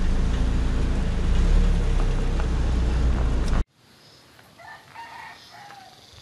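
A vehicle's engine and road rumble, steady and low, cut off abruptly about three and a half seconds in. After the cut, a rooster crows faintly once.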